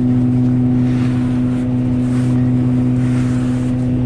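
Concrete truck's diesel engine idling with a steady, even hum.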